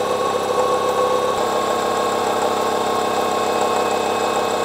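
Milling head of a planer mill cutting a long steel rail with a carbide cutter: a steady machining drone with a high whine. The tone shifts slightly about a second and a half in.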